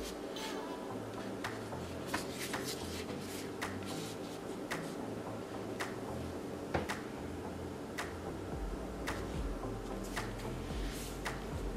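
A string of light, sharp clicks and taps, irregularly spaced at roughly one a second, over a faint low background.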